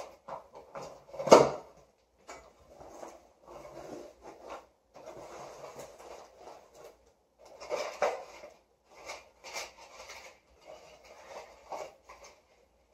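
Cardboard shipping box being opened by hand: a loud sharp rip about a second in as the taped flaps come apart, then cardboard flaps and crinkly tissue packing paper rustling and being pulled out in short bursts.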